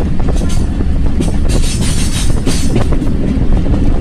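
Train running along the track, heard from on board: a loud steady rumble with irregular clacks of the wheels on the rails.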